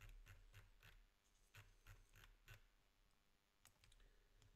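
Faint, quick clicks from a computer's mouse or keys, about five a second, as text is selected and scrolled. They stop about two and a half seconds in, and a few scattered clicks follow near the end.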